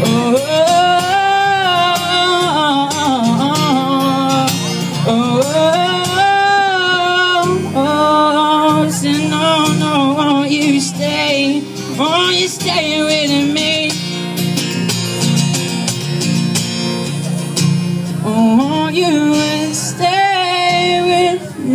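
Live male voice singing long wordless melodic lines over a strummed acoustic guitar, amplified through a PA. The voice drops out for a few seconds past the middle while the guitar carries on, then comes back near the end.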